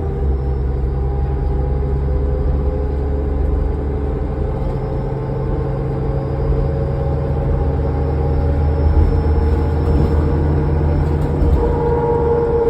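A New Flyer D40LF diesel transit bus running under way, heard from inside the bus: a steady low engine drone, with a higher whine that grows stronger near the end.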